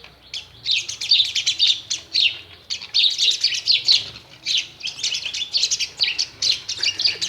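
Myna chirping in a rapid string of short, high notes, in runs separated by brief gaps.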